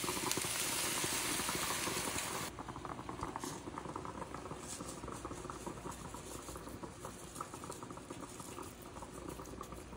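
Stovetop cooking: a loud, even hiss for about two and a half seconds that cuts off suddenly, then a softer steady crackle, from eggs and spinach sizzling in a frying pan and a stainless moka pot brewing coffee on the burner.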